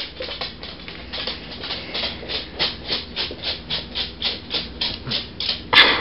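Dog eating and licking at a baby's high-chair tray: quick, even, wet mouth strokes, about five a second, with one louder rasp near the end.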